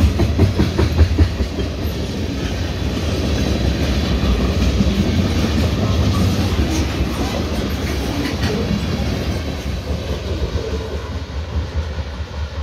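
Freight train cars rolling past, the wheels clacking over the rail joints above a steady low rumble, easing off slightly in the last couple of seconds.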